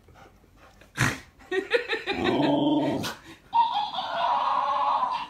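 An Alaskan malamute vocalizing in drawn-out 'talking' sounds, mixed with a talking toy hamster playing the sounds back in a higher, squeaky voice. There is a sharp knock about a second in and another about halfway, and a long, higher-pitched call fills the second half.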